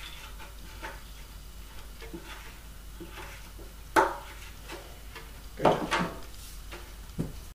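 Light handling sounds over faint room tone: a sharp click about four seconds in and a duller knock just before six seconds, as a metal prop reamer is taken out of the wing and laid down on the table.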